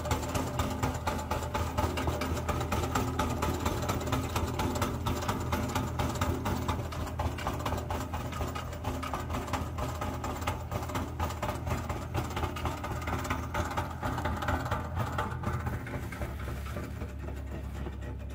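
Tractor engine running steadily while it pulls a tow-behind garlic harvester, with a fast, dense clatter from the digger's conveyor as it lifts garlic plants from the soil. The sound drops somewhat near the end.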